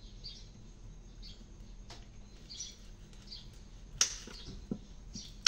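Songbirds chirping in short high calls about once a second, with two sharp knocks near the end.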